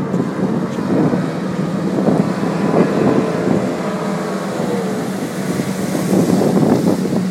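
Water-ski race boat engines running slowly on the water, a steady low drone, with wind buffeting the microphone.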